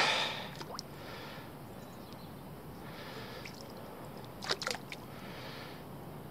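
Faint handling noise of a fishing rod and reel, with a few soft swishes and a short cluster of sharp clicks about four and a half seconds in.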